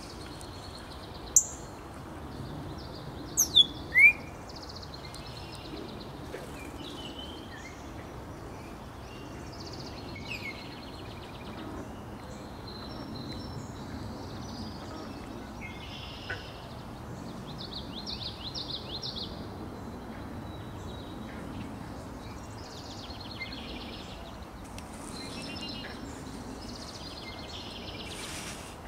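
Several wild songbirds calling and singing over a steady low background hiss, with a few loud, sharp downward-sweeping chirps in the first four seconds and a rapid trill a little past halfway.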